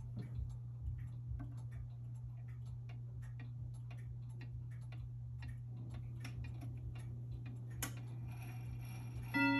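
Portuguese Reguladora dual-chime pendulum wall clock ticking, with one sharper click near the end. Just before the end, its chime begins to strike the hour with ringing metallic tones.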